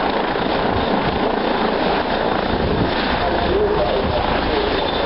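Steady, loud noise of an aircraft in flight.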